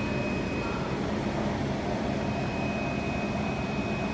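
UV flatbed printer running: a steady hum with a thin, constant high whine over it.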